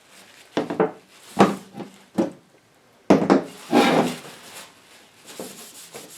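Hands working on stripped radio parts on a workbench: a handful of sharp knocks and clatters, then a louder stretch of rubbing and scraping about three seconds in, fading to faint scraping.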